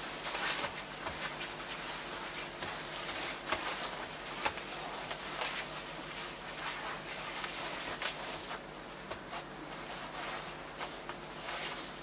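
Cloth rustling and swishing as a men's obi sash is wrapped around the waist and pulled snug over a silk komasha kimono, with many small brushes and ticks of fabric throughout.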